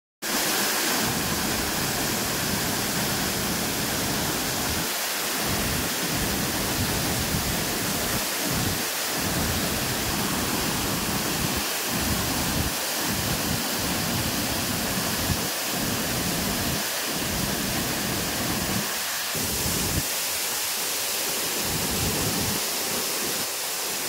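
Steady rushing of fast-running monsoon water, floodwater and falls, a loud even hiss with an uneven low rumble underneath.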